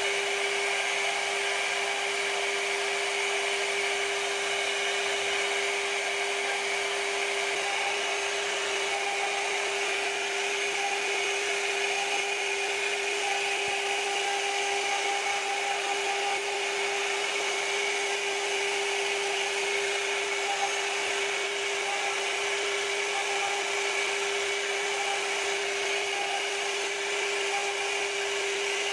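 CNC router spindle running with a steady whine as its bit carves a floral relief into a wooden board, the cutter rasping through the wood.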